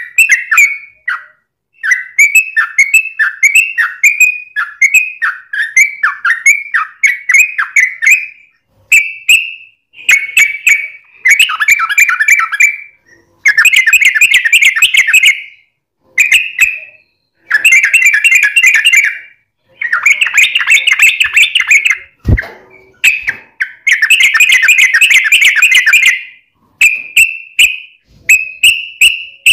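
Yellow-vented bulbul (trucukan) singing loudly in repeated phrases of fast chattering notes, some drawn out into runs of one to two seconds, with short gaps between. A single sharp knock about 22 seconds in.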